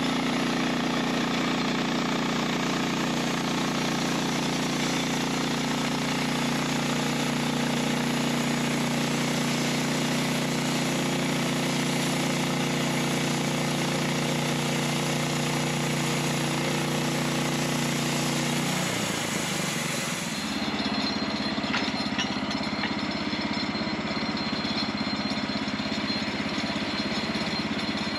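Gasoline engine of a Norwood LumberMate portable bandsaw mill running steadily under load while the band blade cuts through a poplar log, with a high hiss from the cut. A little past the middle the engine pitch slides down and the hiss stops sharply as the cut ends, leaving the engine running at a lower, steady speed.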